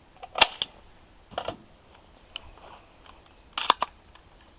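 Handling noise: scattered sharp clicks and knocks of gear being handled. The loudest comes about half a second in, and a quick cluster of three follows about three and a half seconds in.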